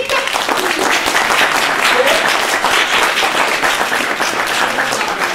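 Audience applauding: many hands clapping in a dense, even patter that eases off near the end.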